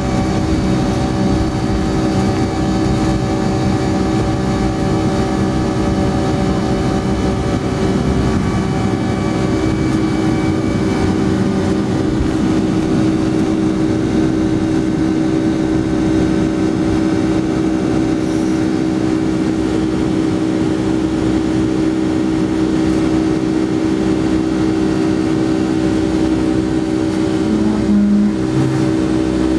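Boeing 757-200's turbofan engines at takeoff thrust, heard from inside the cabin: a loud, steady engine drone with several held tones through the takeoff roll, lift-off and initial climb, with a brief low-pitched change near the end.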